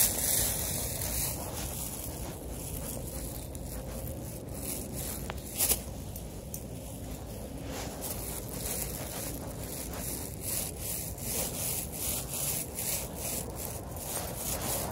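Clothing rubbing and scuffing against a body-worn camera's microphone as the walker moves, a steady scraping noise with irregular swishes and one sharp click about five and a half seconds in.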